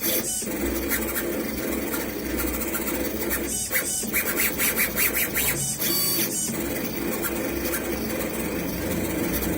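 CNC engraving machine at work engraving a metal pet ID tag: motors whirring and the tool scratching in a dense, rapid patter over a steady hum, with brief pauses a couple of times.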